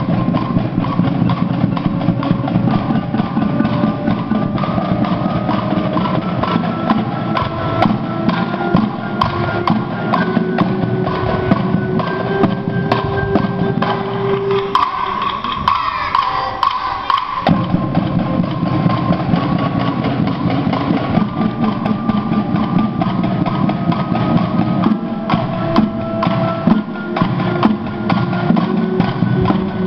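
Percussion ensemble playing mallet keyboard instruments with resonator tubes: fast, dense mallet strokes on pitched bars. About halfway through the low parts drop out for a few seconds, leaving lighter high notes, before the full ensemble comes back in.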